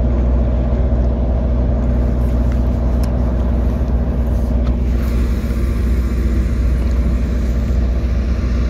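Steady, loud engine drone from construction machinery working on the breakwater, an even low hum with a stack of overtones that holds constant pitch throughout.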